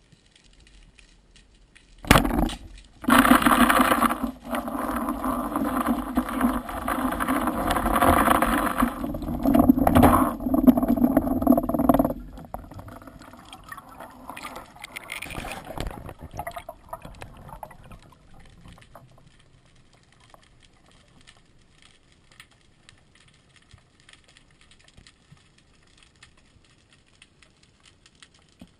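Underwater sound of a speargun shot: a sharp bang about two seconds in, then about ten seconds of loud churning, bubbling water as the speared fish struggles on the line, fading away after that.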